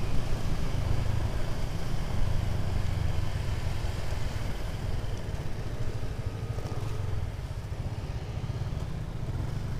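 Motorcycle running while being ridden: engine and road noise with a steady low rumble, easing off slightly toward the end.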